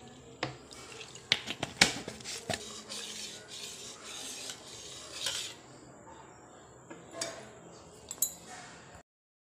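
Sour water poured into a stainless steel bowl of soaked fenugreek seeds, then a spoon stirring the wet seeds and clinking against the steel, about a dozen sharp clinks that are most frequent and loudest around two seconds in. The sound cuts off abruptly near the end.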